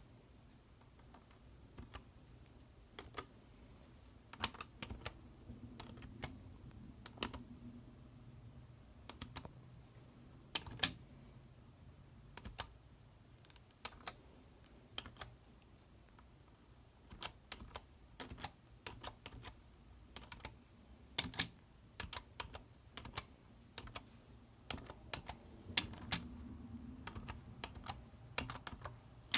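Computer keyboard keys pressed by a prosthetic hand during a typing test: single clicks and short clusters, slow and unevenly spaced.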